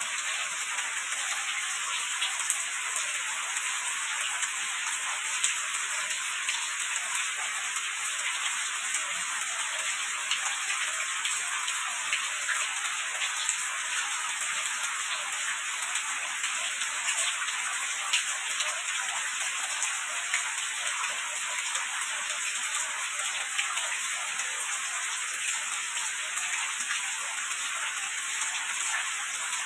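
Steady rain falling: an even hiss of water, dotted with many small drop ticks.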